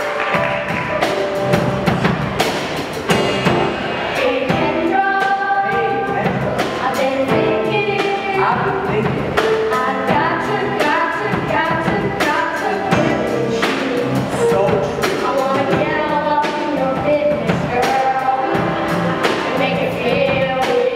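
Teenage boys singing a pop-rock musical-theatre number over a band accompaniment with a steady drum beat.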